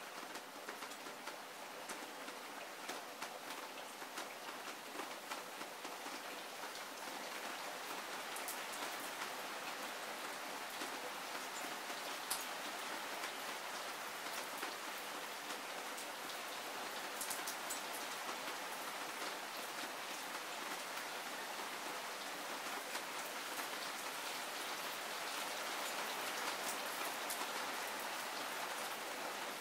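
Heavy rain falling steadily: a dense hiss thick with the ticks of individual drops striking surfaces. It grows a little louder about a quarter of the way in and then holds.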